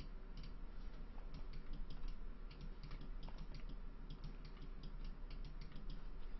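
Computer keyboard and mouse clicks, irregular and several a second, over a faint low hum.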